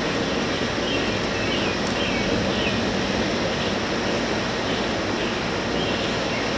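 Steady rushing background noise, even and unchanging, with a few faint short high chirps and a single sharp click about two seconds in.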